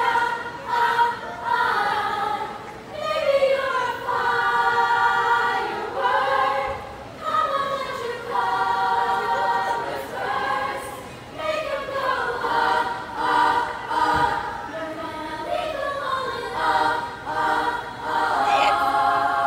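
Youth choir singing unaccompanied, in phrases of long held notes with short breaks between them.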